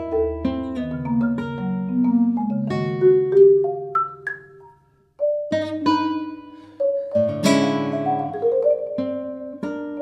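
Classical guitar and marimba playing contemporary chamber music together: quick, interlocking plucked and mallet-struck notes, with a brief pause about halfway through before the playing resumes.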